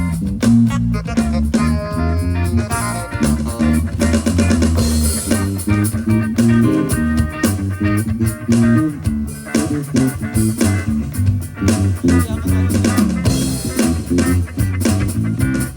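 Band music: plucked guitar and bass guitar over a drum kit keeping a steady beat.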